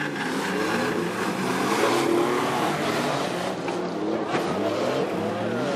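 Off-road 4x4 engine revving up and down repeatedly, its pitch rising and falling over a steady rush of noise.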